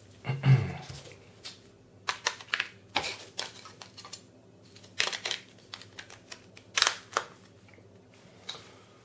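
Plastic clicks and scrapes of a Sony Ericsson Elm mobile phone being handled while a SIM card is fitted: the back cover and parts being pulled off, pushed in and snapped shut. About a dozen irregular clicks, the loudest about half a second in.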